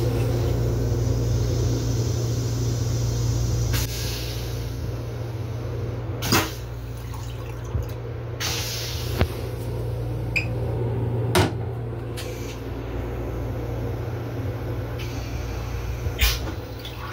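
Steady low hum of the M7 railcar's onboard equipment heard inside the small restroom, dropping a little after about four seconds. Several sharp clicks and knocks a few seconds apart are heard over it, among them the plastic toilet seat being lifted.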